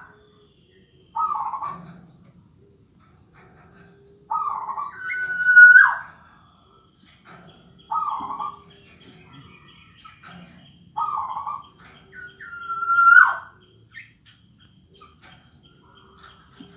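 Black-naped oriole giving its nasal, whining 'rintihan' calls, repeated every two to three seconds; two of them are longer held notes that end in a sharp downward squeal. A steady faint high-pitched whine runs underneath.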